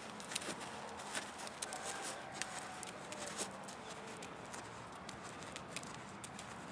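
Friesian mare walking on a sand arena: soft, irregular hoof steps with small sharp clicks.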